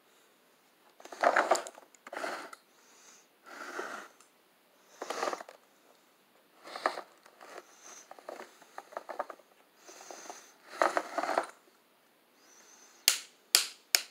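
Hard plastic parts of a Tonka toy tow truck being worked by hand: short scrapes and rattles as the crane boom and levers are moved, a run of quick small clicks in the middle, and three sharp snaps near the end as parts click into place.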